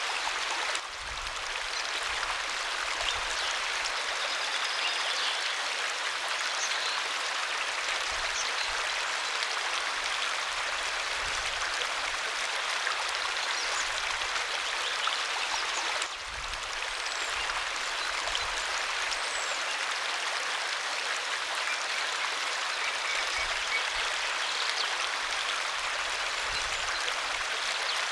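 Waterfall: falling, rushing water making a steady hiss, dipping briefly about a second in and again about halfway through.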